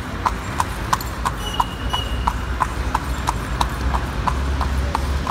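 Carriage horse's hooves clip-clopping on an asphalt street in an even rhythm of about three beats a second, over a low rumble that grows louder near the end.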